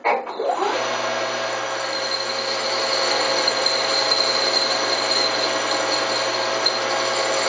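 Emco Super 11 CD metal lathe starting up, its spindle spinning up within about a second and then running at a steady pitch while turning a decorative groove in an aluminium part.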